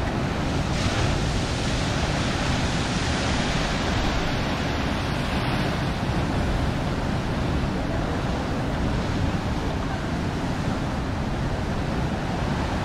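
Steady wash of ocean surf breaking against rocks, mixed with wind buffeting the microphone.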